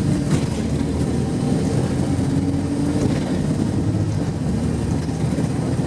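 Wright StreetLite single-decker bus under way, its diesel engine running steadily with road rumble.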